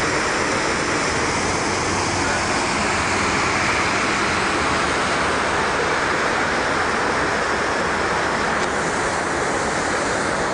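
Steady rush of river water flowing along the channel.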